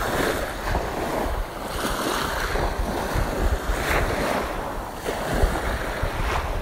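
Small waves breaking and washing up over a coarse sandy shore, surging several times, with wind buffeting the microphone as a low rumble.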